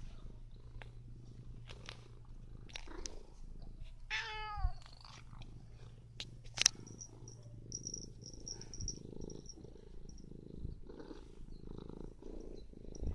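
Domestic cat purring steadily close up, a low pulsing rumble, with one short pitched call about four seconds in.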